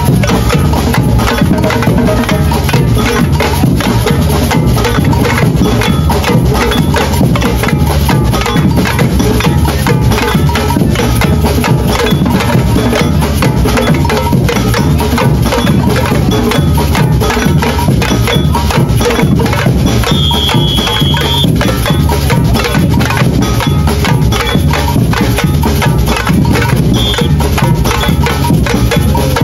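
Samba percussion group (batucada) playing a fast, steady rhythm: surdo bass drums under a dense pattern of small stick-struck hand drums.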